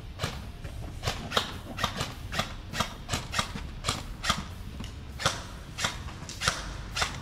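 Footsteps of a person walking at a steady pace, about two steps a second, each a short crunching scuff.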